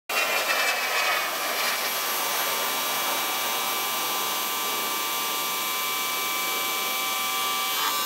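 Electric pressure washer running steadily with a high whine, its 12-inch Ryobi surface cleaner attachment spraying and hissing against concrete.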